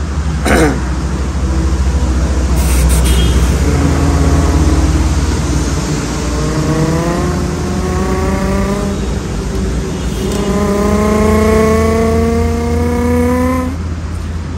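A man imitating a Nissan GT-R's engine with his voice: a revving tone that climbs for several seconds, drops about ten seconds in as if for a gear change, and climbs again.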